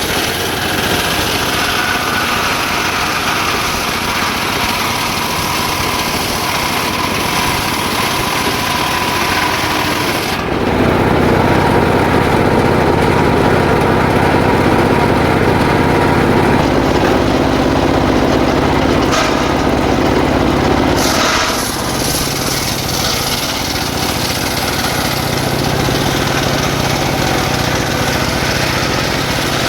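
Circular saw running steadily while ripping jackfruit wood into boards. About ten seconds in, it turns lower and louder for about ten seconds, as the blade works under load, then settles back.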